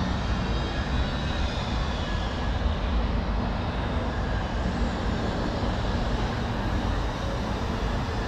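Steady low rumble of outdoor city ambience, with no distinct single event.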